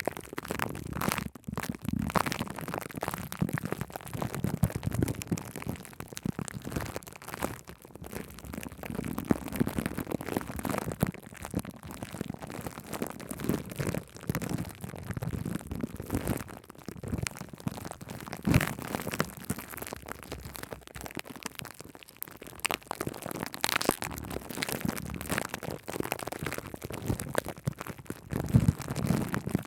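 Shaving cream foam being squished and rubbed directly on a microphone: dense, close-up crackling and popping, swelling louder every few seconds.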